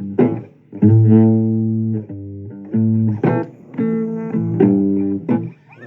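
Blues music: a guitar picking a phrase of separate, ringing notes, with no singing.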